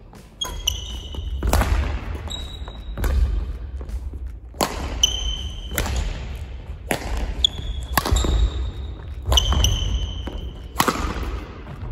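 Badminton singles rally: racket strikes on the shuttlecock about every one and a half seconds, with short shoe squeaks on the court floor between shots, over a steady low rumble.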